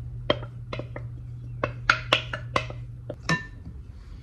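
A utensil clinking and knocking against a mixing bowl, about ten sharp, irregular strikes, some ringing briefly, as wet ingredients are stirred into sourdough biscuit dough. A steady low hum runs underneath and fades near the end.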